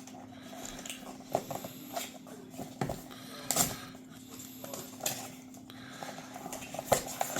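Packaging of a mystery plush being handled and opened by hand: irregular crinkling and sharp crackles, about one every second, over a faint steady hum.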